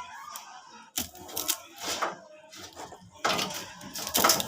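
Irregular clicks and clattering knocks, several in a few seconds, loudest near the end.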